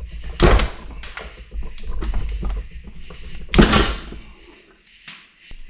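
Hand tools and small metal engine parts being handled on a workbench: a series of knocks and clatters, the loudest about half a second in and again about three and a half seconds in.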